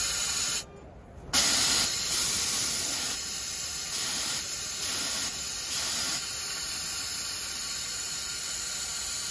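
Hissing of air from the JUKI AMS-221EN's automatic bobbin changer as it swaps the bobbin: a short hiss at the start, a brief pause, then a steady hiss that runs on for the rest of the time.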